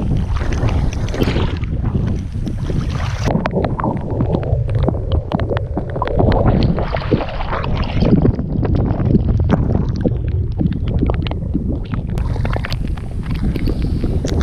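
Wind buffeting the microphone in a steady low rumble, with water sloshing and splashing as a hooked flathead is drawn through the shallows; many small sharp ticks run through it.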